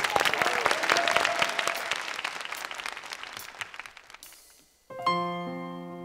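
Applause fading away over about four seconds, with a faint trace of music under it. After a moment of quiet, a piano begins the song's intro with single notes and chords about five seconds in.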